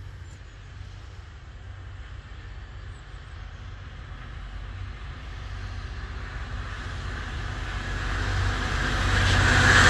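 Class 66 diesel-electric freight locomotive, with its two-stroke V12 diesel engine running, approaching with its train. It grows steadily louder as it nears.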